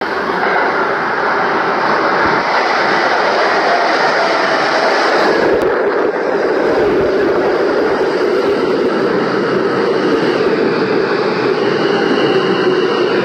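R160 subway train entering the station and rolling along the platform: a loud, steady rumble of the cars on the rails. A faint high whine comes in near the end as it slows.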